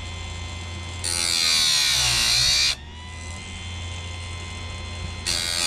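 Electric bench-mounted chainsaw chain sharpener running. Its grinding wheel is lowered onto a chain cutter twice: first a loud grind of about a second and a half, then a second grind starting near the end. During each grind the motor's pitch sags under the load and recovers as the wheel lifts off.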